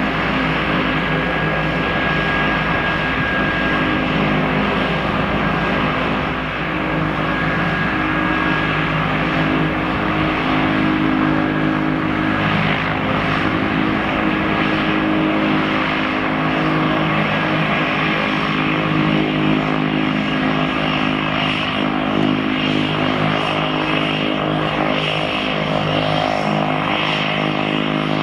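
Cessna 208 Caravan's Pratt & Whitney PT6A turboprop engine running at low taxi power: a steady propeller drone with a high turbine whine over it.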